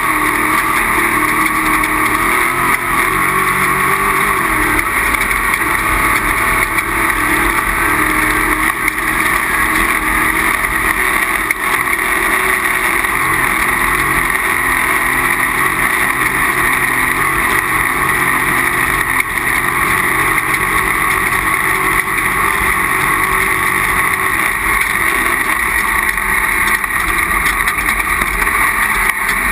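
Off-road race vehicle's engine running continuously at speed under a steady noisy rush, its pitch shifting only slightly.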